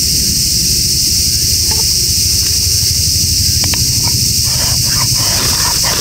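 Steady high drone of summer cicadas, with a few light taps, then from about four and a half seconds in a run of quick scrapes of a ferrocerium rod throwing sparks into jute twine and wood shavings, which catch fire.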